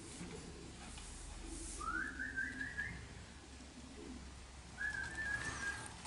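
Racing pigeons cooing softly at the loft, with two short whistles over them: a rising one about two seconds in and a level one near the end.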